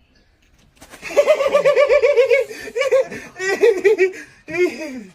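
Hearty laughter breaking out about a second in, in quick ha-ha-ha pulses, with several bursts that go on to the end.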